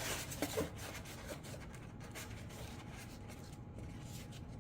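Rubbing and scraping as a glued rear rudder fin is pushed and worked into its slot on the RC plane's body, with a sharper rub at the start and a couple of small clicks about half a second in.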